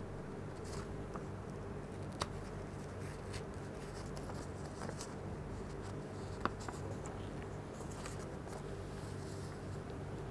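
Faint paper rustling and a few small sharp ticks as the tip of a ballpoint pen pokes a hole through the centre of a filter paper, over a steady low hum.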